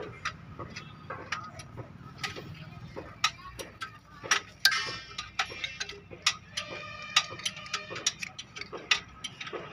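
Irregular light metallic clicks and clinks as a steel injector hold-down bracket and fittings are handled and seated between the diesel injectors on the cylinder head.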